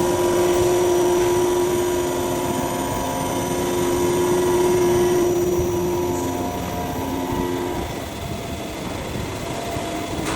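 CNC duplex milling machine machining a workpiece from both ends at once: a steady mechanical noise with a held whine from the cutters, which changes pitch slightly about six seconds in.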